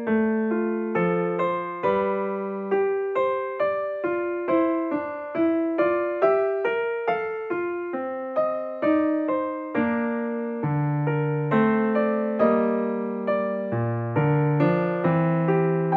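Background piano music: a steady melody of struck notes, a few per second, each dying away.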